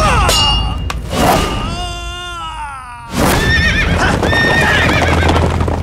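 A horse whinnying: one long, quavering call that falls in pitch, starting about a second and a half in, over a steady low background drone. A louder noisy stretch follows about three seconds in.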